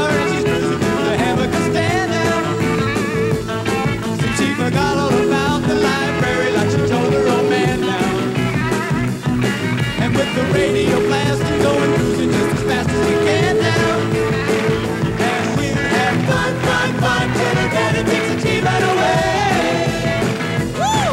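A pop-rock vocal group singing in close harmony over electric guitar and band backing, with long held notes that break off and come back.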